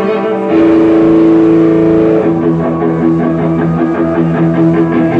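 Live punk rock band playing, electric guitar chords held and ringing, with a brief break and a new chord about half a second in and another chord change about two seconds in.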